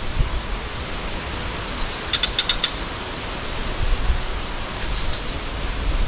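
Wind buffeting the microphone: a steady hiss with uneven low rumbles. Two short runs of faint, quick high ticks, about two seconds in and again near five seconds.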